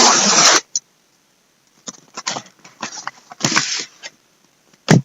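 A mailed package being opened by hand: a loud rustle of packaging at the start, then scattered crinkling and rustling, and a sharp click near the end.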